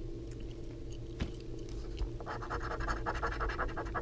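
A coin scratching the coating off a scratch-off lottery ticket on a tabletop, in rapid short scraping strokes that start about two seconds in.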